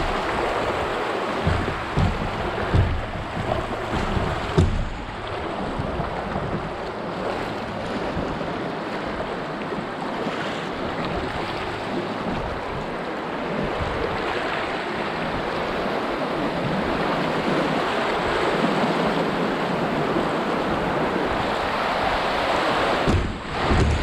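Shallow river riffles rushing and splashing around a kayak as it runs through the rapids, with wind buffeting the microphone. A few low thumps come in the first five seconds.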